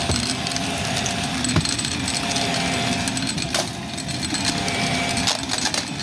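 Shark Navigator upright vacuum running over carpet with the brushroll on: a steady motor drone with a thin whine, broken by a few sharp clicks and crackles, the loudest about a second and a half in.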